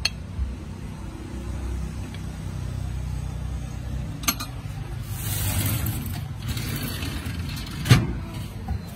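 Low, steady rumble of passing motor traffic, with a hiss that swells about five seconds in and fades a second and a half later. Two sharp knocks break through, a small one a little past four seconds and a louder one near the end.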